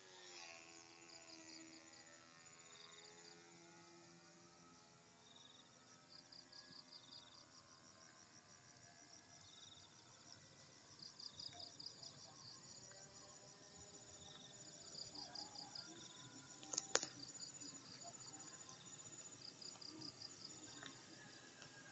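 Near silence with faint insects chirping in repeated high trills, and a single sharp click about seventeen seconds in.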